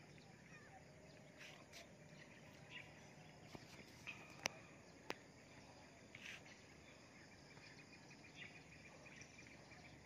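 Faint, scattered bird chirps over a quiet outdoor hiss, with two sharp clicks about half a second apart near the middle.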